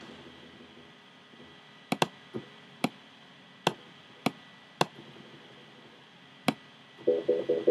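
Computer mouse clicks, about eight sharp single clicks spaced irregularly, as the EQ settings are changed. Near the end a Sylenth1 synth note comes in as a rapidly pulsing buzzy tone, narrowed by a bandpass EQ set near 500 Hz.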